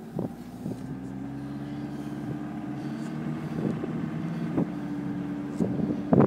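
Car engine heard from inside the cabin, running steadily under way, its pitch rising a little over the first couple of seconds and then holding. A few knocks and rattles come in near the end.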